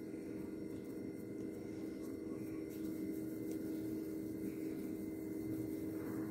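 A steady low hum with a few held tones, unchanging throughout.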